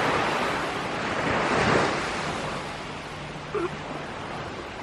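Surf washing onto a beach: a steady rush that swells to its loudest about a second and a half in, then eases off.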